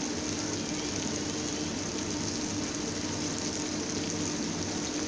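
Onions and tomatoes frying in oil in a pan, a steady even sizzle, with a faint steady hum underneath.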